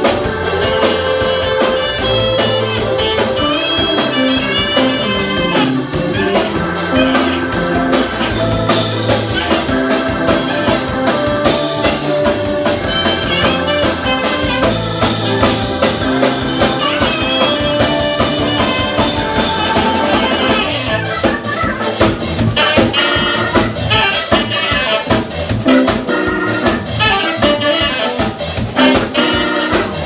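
A live jazz quartet of organ, electric guitar, saxophone and drum kit playing together. From about twenty seconds in the playing turns to short, choppy hits with the drums.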